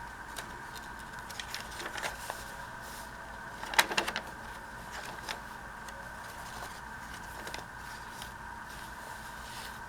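Paper and craft pieces being handled: scattered light clicks and rustles, loudest in a short cluster about four seconds in. A steady faint high hum runs underneath.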